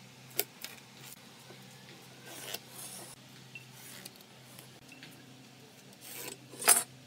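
Marking out a pine board with a steel ruler and a pen: a couple of light clicks, a rubbing scrape about two and a half seconds in, and a louder scrape of the metal ruler and pen on the wood near the end.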